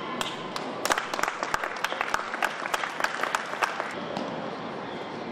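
Scattered hand-clapping from a small group of spectators, a few seconds of uneven claps that start about a second in and stop near four seconds.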